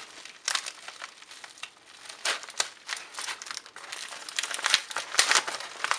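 Yellow padded bubble-mailer envelope being cut and pulled open by hand: irregular crinkling and rustling of the paper and plastic, with a few sharp crackles.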